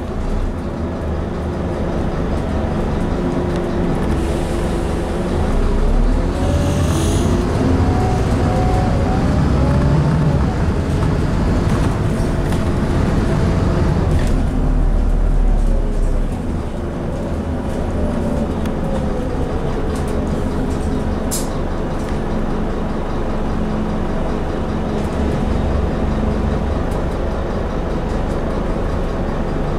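Scania N230UD double-decker bus heard from inside while it drives: its five-cylinder diesel engine and driveline whine rise in pitch as it accelerates, then fall as it eases off. A short hiss comes about seven seconds in, and a sharp click about two-thirds of the way through.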